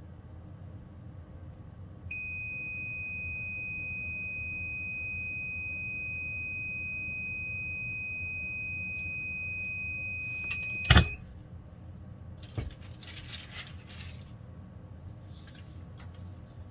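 Heat press timer alarm sounding one loud, steady, high-pitched beep for about nine seconds, signalling that the press time is up. It cuts off suddenly with a sharp click, followed by brief rustling.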